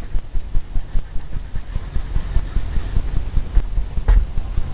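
Paintbrush working oil paint onto a canvas on an easel: a run of irregular low thumps and rubbing from the brush strokes, with a couple of sharper taps near the end.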